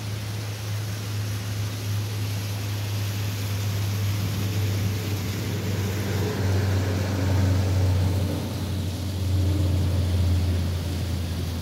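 Wind rumbling on the microphone outdoors: a steady low rumble with hiss over it that swells and eases, loudest around the middle and again near the end.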